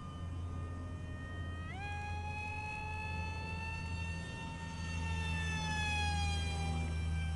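RC flying-wing plane's motor and propeller whining in flight; the pitch jumps up sharply about two seconds in as the throttle opens, holds, then slowly falls off near the end. A steady low hum runs underneath.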